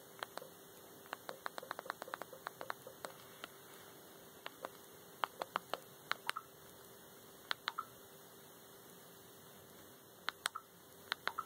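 Sharp clicks of scrolling through the Boxee Box's on-screen menu: quick runs of several a second in the first few seconds, then single and paired clicks, a few followed by a brief faint tone. A steady hum runs underneath.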